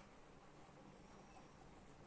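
Near silence: a faint, steady background hiss with no distinct crackling or other events.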